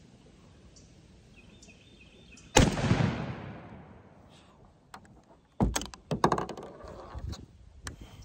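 A single 12-gauge shotgun shot from a Remington 870 pump-action firing a 3.5-inch turkey load, a sharp blast about a third of the way in with a tail that fades over about two seconds. A few seconds later come several sharp clacks and knocks of the gun being handled.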